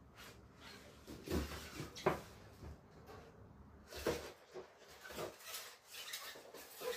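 Kraft-paper gift bag rustling and scraping across a floor in irregular bursts, with a few sharper knocks, as a cat pushes it and tips it onto its side.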